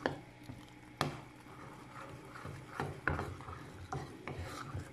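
Wooden spoon stirring thick, nearly ready jaggery caramel in a saucepan, with irregular scrapes and knocks against the pan about once a second.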